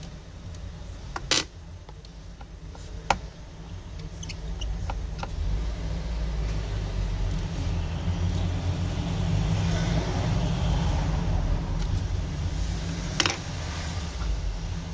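Small sharp clicks of a metal repair tool against the opened Redmi 9A's frame and connectors, three louder ones about a second and a half, three seconds and thirteen seconds in, with fainter ticks between. Under them a steady low rumble that grows louder about halfway through.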